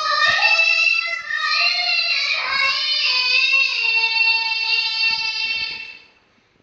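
A young girl singing a naat unaccompanied, one long drawn-out phrase with wavering held notes that fades out near the end.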